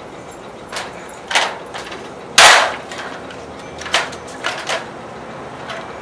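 Hand pop-rivet gun squeezed on a 1/8-inch blind rivet: a few light clicks, then one loud sharp snap about two and a half seconds in as the mandrel breaks off and the rivet sets, followed by a few lighter clicks.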